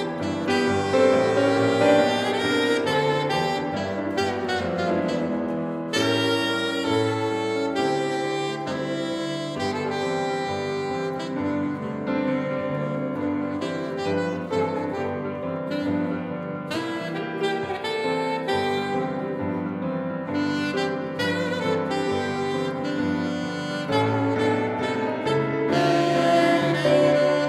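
Alto saxophone playing a jazz-style melody, accompanied by a grand piano.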